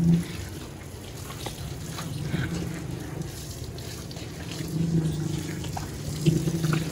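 Water from a garden hose spraying and splashing onto a water buffalo's hide as it is washed, a steady hiss with dribbling water.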